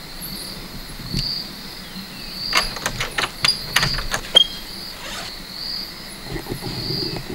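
Crickets chirping in a steady, pulsing high chorus. From a little over two seconds in until about four and a half seconds, a quick run of sharp clicks as a metal lever door handle and latch are worked.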